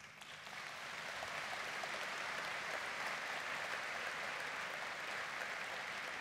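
Large audience applauding, the clapping swelling in over the first second and then holding steady.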